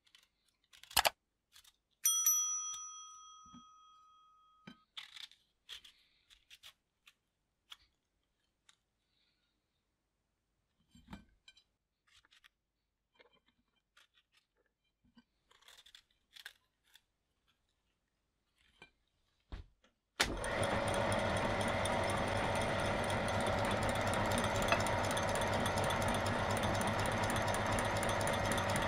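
A few sharp clicks and a single bell-like metallic ring that fades over about three seconds, then faint small knocks of a knife slicing pears. About twenty seconds in, the motor of a belt-driven meat grinder switches on and runs steadily, still unloaded.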